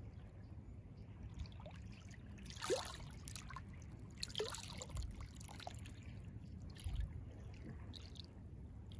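Gentle sea waves lapping and splashing close by, with two louder gurgling splashes about three and four and a half seconds in and a few smaller plops, over a steady low rumble.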